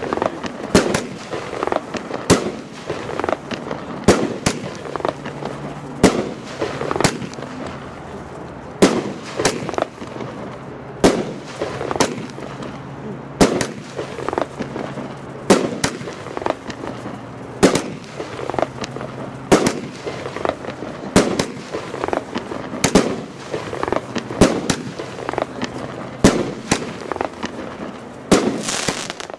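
Firework battery (cake) firing shot after shot, with shells bursting in the air: a strong bang about every second, with smaller pops between them.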